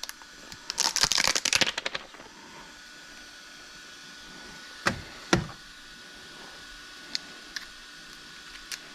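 3D-printed plastic infinity triangle cube fidget toy being flexed: a quick flurry of light plastic clicks and clacks as its hinged segments fold, then two sharper clacks about five seconds in and a few faint ticks near the end.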